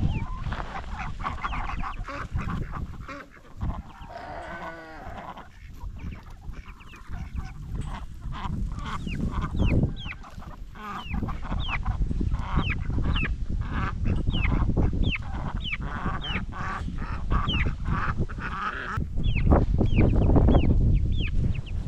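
Young chicks peeping in many short, high chirps that fall in pitch, about two a second, mixed with lower honk-like calls from other fowl. A low rumble runs underneath.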